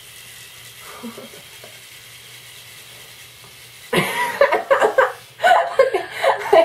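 Spider-Man electric toothbrush buzzing steadily at low level while brushing teeth. About four seconds in, loud laughter breaks out and covers it.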